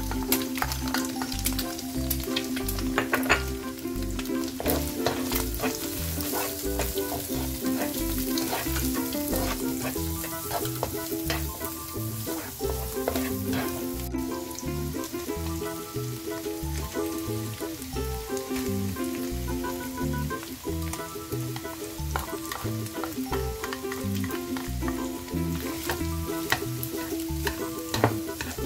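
Diced carrot, petai beans and egg sizzling in a nonstick wok, with a plastic spatula scraping and tapping the pan as it stirs. Background music with a steady beat plays under it.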